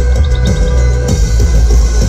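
Electronic music with heavy bass and a drum beat, played loud through a large truck-mounted sound system's speaker array during a sound check.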